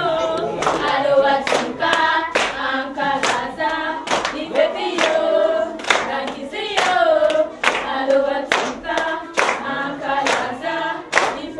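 A group of children singing together in chorus, clapping their hands in time at about two claps a second.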